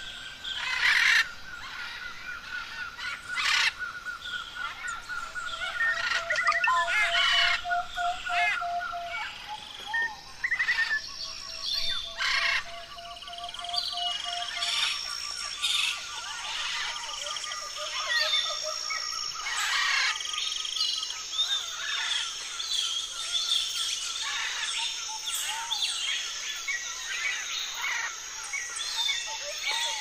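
Many wild birds calling and singing together: repeated trills, short chirps and occasional sharp loud calls, with a steady high whine joining about halfway.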